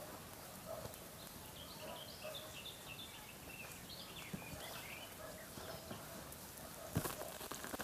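Small birds chirping, with many short high calls repeated through the quiet background. A single sharp knock comes near the end.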